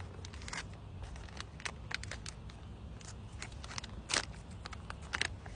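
Crinkling and crackling of the plastic wrapper on an MRE apple turnover as it is handled and opened: scattered sharp crackles, with a louder one about four seconds in.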